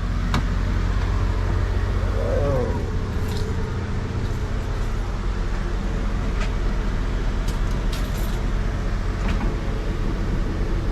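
Tour bus engine running with a steady low hum, with a few faint ticks over it.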